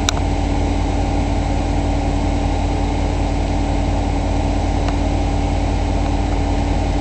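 Diesel train engine idling at a standstill: a steady low rumble with a constant hum. There is a brief sharp click at the very start.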